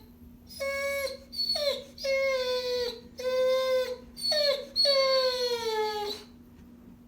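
A dog giving a series of six drawn-out, high-pitched cries, several of them sliding down in pitch. The last cry is the longest, about a second and a half.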